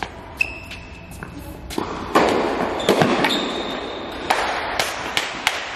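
Tennis rally: a string of sharp racket-on-ball hits and ball bounces, about ten in a few seconds, echoing in a large indoor hall.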